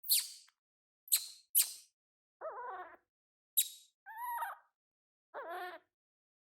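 Baby monkey calling: four sharp, very high squeaks and three short, wavering, high-pitched cries, each separate from the next.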